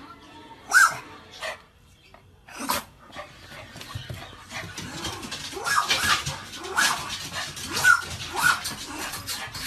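Small brown poodle barking in short, sharp barks: a few spaced barks in the first three seconds, then a quicker run of barks in the second half.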